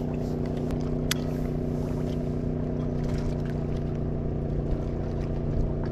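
A small engine running steadily at one unchanging pitch, with a single sharp click about a second in.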